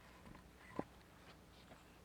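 A single sharp click just under a second in, with a few faint ticks before and after it, over near silence.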